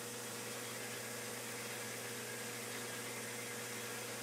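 Metal lathe running steadily, a low even hum with a faint steady whine, as a center drill in the tailstock feeds into the end of a spinning aluminum bronze bar.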